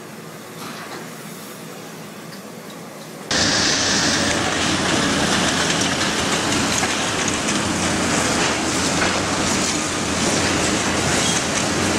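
Demolition noise: fainter machine and site noise at first, then about three seconds in, a sudden jump to loud, steady crunching and rumbling as a long-reach excavator's crusher jaws break up a concrete building and rubble comes down.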